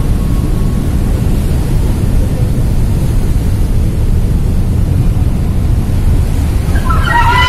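Steady low rumble of a ferry's engines with sea water churning against the hull and dock, and wind buffeting the microphone. A brief pitched sound cuts in near the end.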